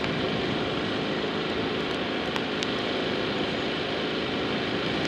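Wind buffeting an outdoor microphone: a steady rumbling noise with a couple of faint ticks about two and a half seconds in.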